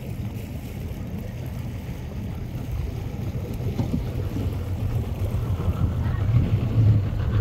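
Low, steady rumble of a nearby idling boat engine, growing louder toward the end, mixed with wind on the microphone.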